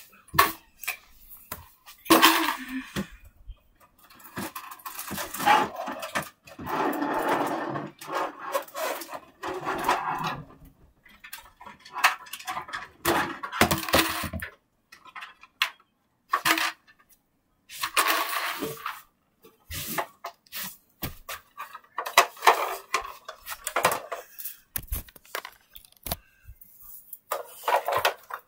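Hard toys clattering and knocking together in irregular bursts, as a pile of toys is rummaged through and handled.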